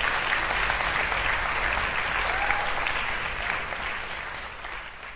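Audience applauding, a dense even clapping that holds steady and then fades away over the last second or two.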